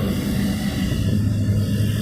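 Industrial Frigo R-105 chiller running with two compressors and its condenser fans: a steady hum over a constant rush of fan air.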